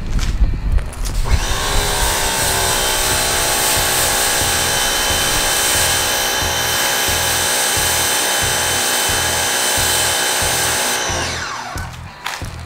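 Electric pressure washer motor spinning up with a rising whine about a second in, running steadily with its water spray hissing on the windshield, then winding down near the end. Background music with a steady beat underneath.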